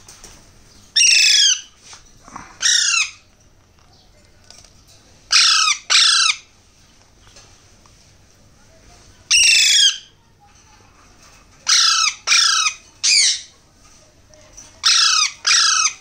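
Young Alexandrine parakeets giving loud, harsh calls, about ten in all, singly or in quick pairs and threes, each short and falling in pitch: hand-fed chicks begging for food at the syringe.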